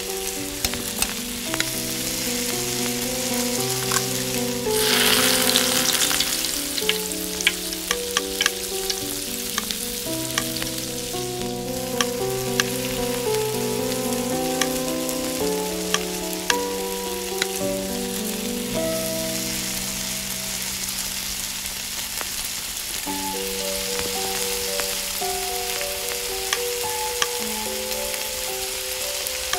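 Quail eggs sizzling in hot oil in a miniature iron kadai, with a louder burst of sizzling about five seconds in, while a small metal spatula clicks and scrapes against the pan as the eggs are scrambled.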